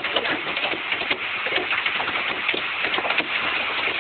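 Hail pelting down onto the lake water and the boat: a dense, continuous patter of many sharp, irregular impacts over a steady hiss.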